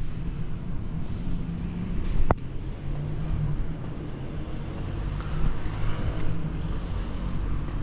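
Steady low rumble, with one sharp knock on a metal spiral staircase about two seconds in.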